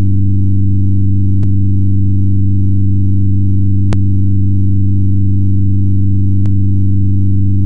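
Simulated propeller noise from a computed pressure signal played as sound: a loud, steady, low synthetic hum of several stacked tones. Three faint clicks sit about two and a half seconds apart.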